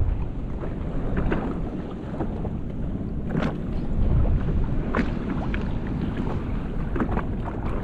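Strong wind buffeting the microphone, with choppy sea water slapping against the hull of a Sea-Doo Fish Pro personal watercraft, sharpest about three and a half, five and seven seconds in.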